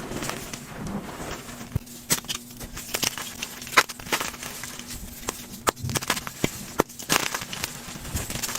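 Blocks of gym chalk being crushed, giving an irregular run of sharp, crunchy crackles and snaps.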